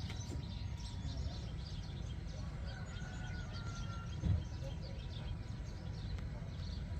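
Many small birds chirping over a steady low rumble, with a single thump about four seconds in.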